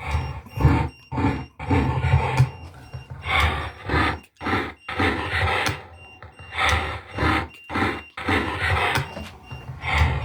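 Playback of an audio recording of a man's voice, muffled and distorted so the words can't be made out, in speech-like bursts with a heavy low boom. Faint steady high-pitched tones run through it.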